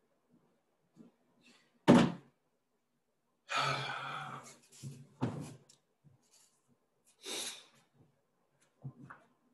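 Handling and movement noise close to a computer microphone: a sharp thump about two seconds in, about a second of rustling, a second thump about five seconds in, and a short breathy hiss near seven seconds.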